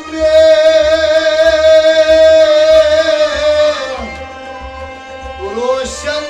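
Kashmiri folk music: a man sings one long held note over harmonium, with a plucked long-necked lute and a hand drum. About four seconds in the music drops quieter and a sliding vocal phrase follows.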